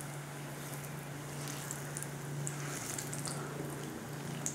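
Gulab jamun dough balls deep-frying in oil on a low flame: a soft, steady sizzle with scattered small crackles. A low steady hum runs underneath.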